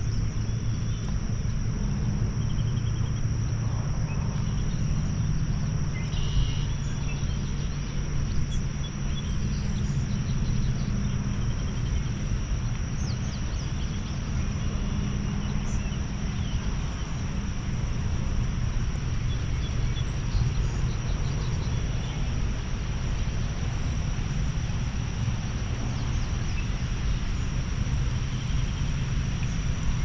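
Steady outdoor ambience: insects drone in one constant high tone over an even background hiss and a low steady rumble.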